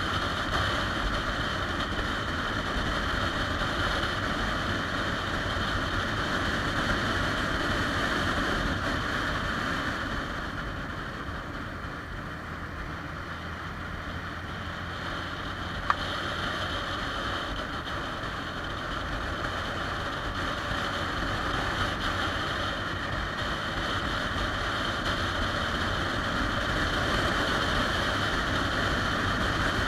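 Motorcycle riding at road speed: steady wind rush over the bike-mounted camera with the engine running underneath. It eases off for several seconds in the middle, and there is a single sharp click about 16 seconds in.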